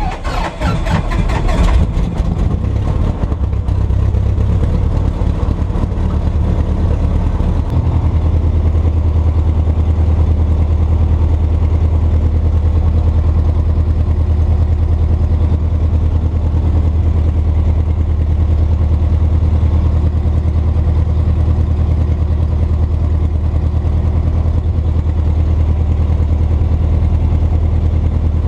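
Christen Eagle biplane's four-cylinder Lycoming AEIO-360 engine just after starting, running rough and uneven for the first couple of seconds, then settling into a steady idle that becomes smoother and deeper about eight seconds in.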